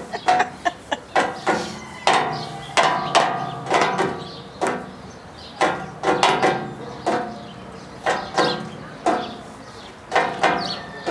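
Ostrich beaks pecking at the rusty metal rails of a pen: irregular knocks, about one or two a second, each ringing briefly like struck metal.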